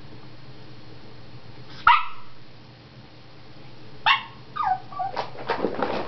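Yorkshire terrier barking: one sharp bark about two seconds in, then from about four seconds a quick run of yips and short barks, some of them falling in pitch.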